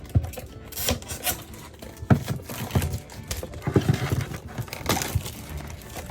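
Hands handling and opening plastic toy packaging: irregular knocks, clicks and short crinkling rustles.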